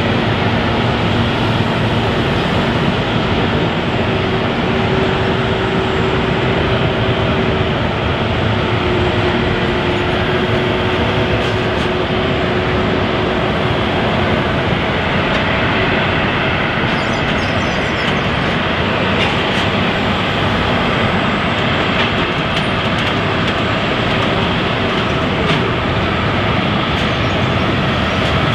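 Jet airliner engines running: a steady noise with faint steady whining tones above it.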